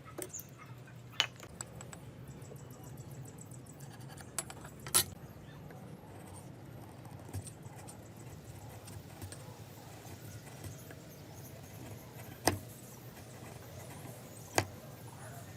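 A handful of sharp, isolated taps and clicks, spaced seconds apart, over a low steady hum.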